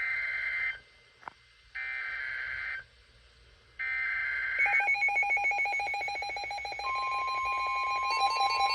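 Three buzzing bursts of NOAA Weather Radio SAME digital data, each about a second long with short silences between them; these are the coded header that opens an emergency alert. About five seconds in, a fast-pulsing electronic alarm starts. Near seven seconds the steady weather radio warning tone joins it.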